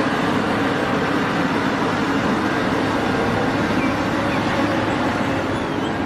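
Caterpillar 6015B hydraulic mining excavator running steadily while loading a haul truck: a constant low engine hum under a broad rushing noise.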